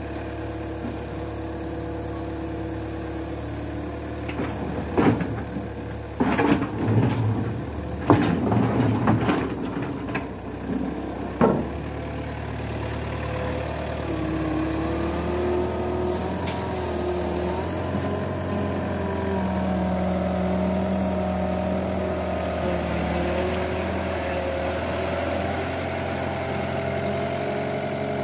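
Sumitomo hydraulic excavator's diesel engine running steadily, with a run of loud clanks and knocks between about 4 and 12 seconds in. From about halfway the engine runs louder under load, its pitch wavering.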